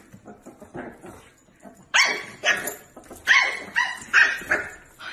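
A dog barking: a few quieter barks, then a run of about six short, sharp, high-pitched barks starting about two seconds in.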